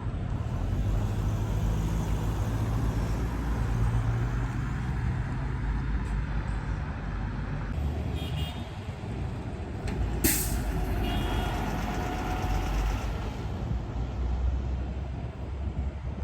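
Heavy truck or bus engine running close by, with a short, sharp burst of air hiss from its air brakes about ten seconds in.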